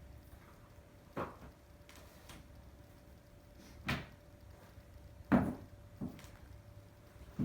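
Four separate short knocks and clunks of things being handled, the loudest a little past five seconds in, with quiet between them.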